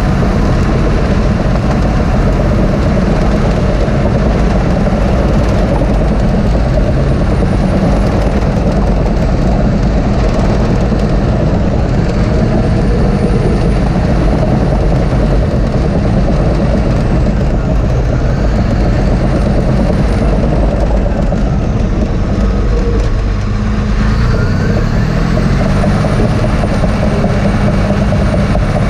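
Caterpillar D6T LGP crawler dozer running steadily under load as it pushes dirt with its blade, heard from inside the cab. Faint higher whines glide up and down several times over the steady engine sound.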